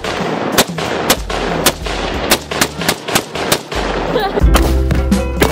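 An AR-style rifle fired rapidly, one shot at a time, about three shots a second. Music comes in under the shots about four and a half seconds in.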